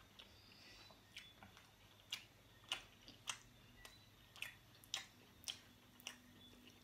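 Close-miked chewing of pepperoni pizza: a string of short, wet mouth clicks and smacks, irregular at about one or two a second.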